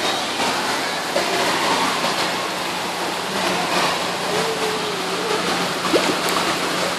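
Steady rush of splashing, churning water in a stingray touch pool.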